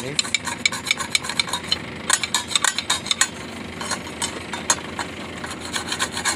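Steel bar scraping and scratching along the grooves of a rusty wire-rope pulley's steel sheaves, with irregular quick strokes and clicks, to clean out rust and grime.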